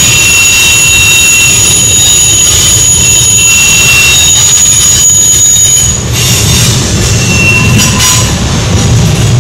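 Steel wheels of a passing freight train squealing against the rails on a tight curve: several high, steady squeal tones come and go over the low rumble of the rolling cars. The highest squeal stops about six seconds in.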